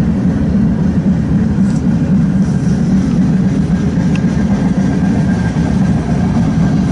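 Freight cars of a manifest train rolling past close by: a steady rumble of steel wheels on the rails.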